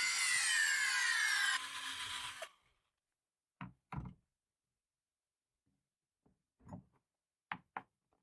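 A drill motor whines at high speed, its pitch sagging slightly, then cuts off about a second and a half in and fades away within another second. A few short wooden knocks follow.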